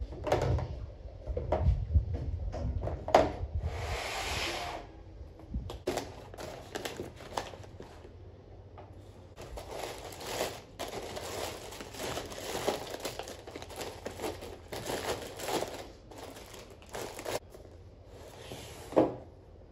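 Plastic grocery packets and bags crinkling and rustling in irregular bursts as they are handled, with a few sharper knocks as items are set down.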